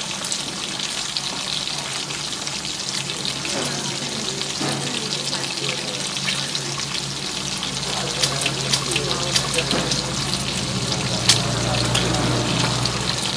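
Wet, crackling, sloshing noise of hands working a damp mixture in a plastic tub, with sharp clicks scattered through it. A low, steady electronic drone underneath grows louder in the second half.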